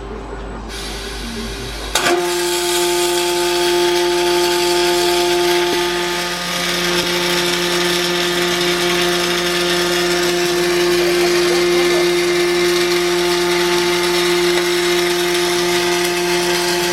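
Welding arc struck about two seconds in with a sharp click, then burning with a steady buzz of several fixed tones over a loud hiss.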